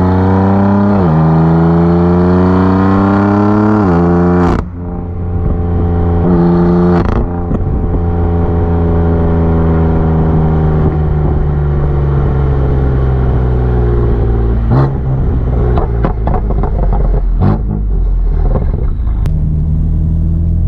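BMW F82 M4's twin-turbo inline-six with downpipes and a tune, accelerating hard. The revs climb and drop sharply at quick upshifts about one second and four and a half seconds in, then rise slowly in a long pull. It ends with a string of sharp exhaust pops and cracks near the end.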